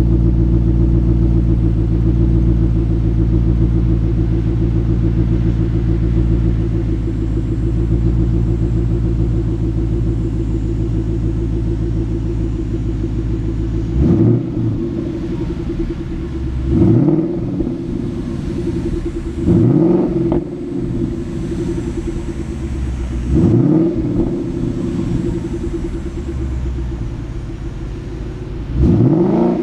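2012 Ford Mustang GT's 5.0-litre V8 exhaust through GT500 mufflers, idling steadily shortly after a cold start. About halfway through come five quick throttle blips, each a rising then falling rev, spaced a few seconds apart.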